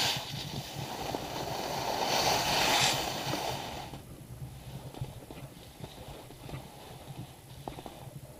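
Skis sliding and scraping over packed snow during a downhill run, with wind rushing over the microphone. The sound is loud for the first three to four seconds, then turns quieter, with light ticks and knocks.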